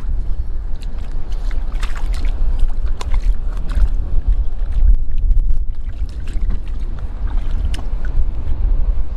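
Steady low wind rumble on the microphone, with scattered splashes, sloshes and scrapes as rocks are turned over in shallow water.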